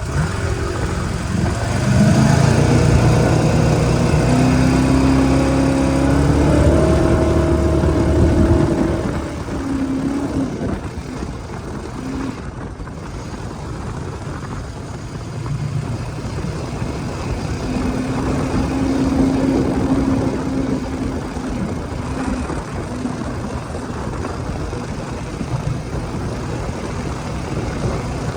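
Boat engine driving a Berkeley jet pump, accelerating hard from near standstill with its pitch climbing for about six seconds, then losing power suddenly about eight seconds in and running lower and unevenly after that. The owner takes the loss of power for a lingering fuel delivery problem.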